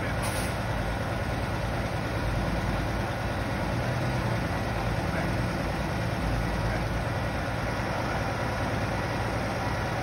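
Heavy trucks' diesel engines idling steadily.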